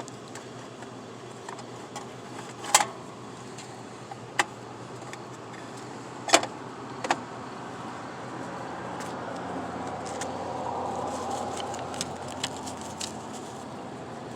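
Sharp metal clicks and small clatters from the bill box of a Dixie Narco vending machine's bill validator being opened and handled as the bills are collected. A few separate clicks come in the first half, then a run of lighter rattling clicks, over a steady low hum.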